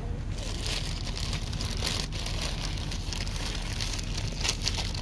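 Plastic bread bag crinkling and rustling in a steady run of small crackles as bread is pulled out of it by hand, over a low steady hum.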